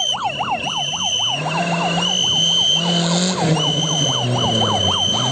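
Maruti Gypsy rally car's engine revving on a dirt stage, its pitch climbing about a second in and stepping down twice later. Over it runs a loud, fast warbling tone like a yelp siren, rising and falling about four times a second.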